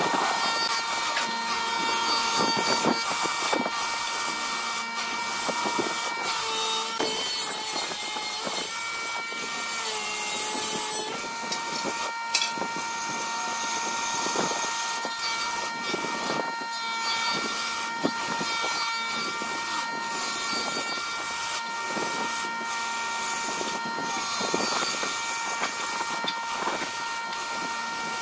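Wood lathe running with a steady motor whine while a handheld gouge cuts a spinning wooden vase blank. The cut makes a rough scraping hiss with irregular ticks and scrapes as the tool bites and shavings fly.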